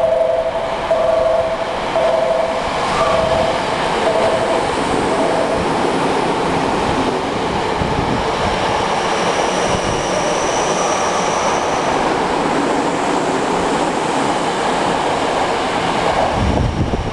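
Tokyo Metro 08 series electric train running through an underground station at speed without stopping: a loud, steady rush of wheels and running gear that builds and fades as it passes, with a thin high whine midway. During the first few seconds a two-note chime repeats on and off.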